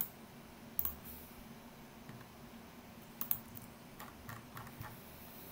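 Computer mouse and keyboard clicks: a few short, sharp clicks, one at the start and another just under a second in, then a quick cluster of clicks in the second half.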